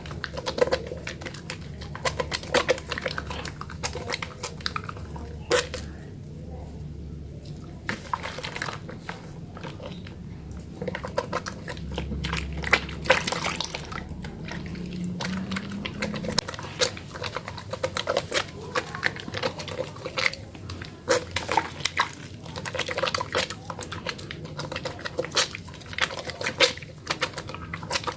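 Wet hands lathering a small Sabun Holly soap bar: irregular squelching and sticky clicking of the foam, with frequent sharp smacks.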